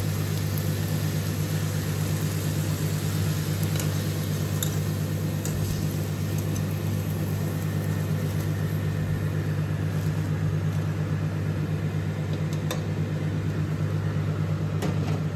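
Microwave oven running with a steady low electrical hum, with a few faint metallic clinks from a wire strainer against a steel pot.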